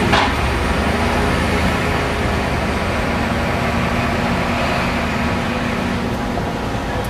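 Fire engine running steadily as it drives, engine drone and road noise heard from inside the cab, with one short knock near the start.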